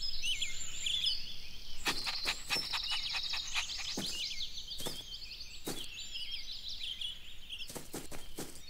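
Birds chirping and twittering steadily, with a scattering of sharp clicks or knocks here and there.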